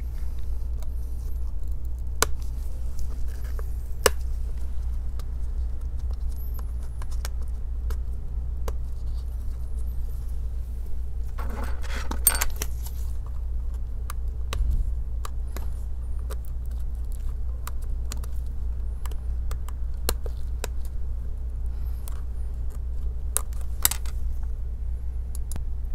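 Scattered light clicks and taps of a plastic prying tool working at the metal battery-connector latch on a MacBook Air M1's logic board, with a short scraping patch about halfway through, over a steady low hum.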